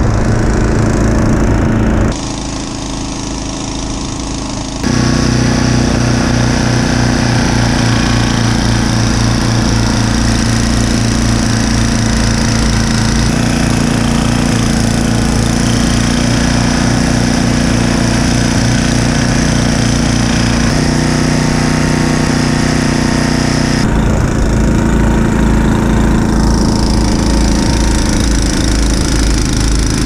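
Two-stage gas snowblower engine running steadily under load while its auger and impeller throw snow. The sound changes abruptly about 2, 5 and 24 seconds in, and is quieter from about 2 to 5 seconds in.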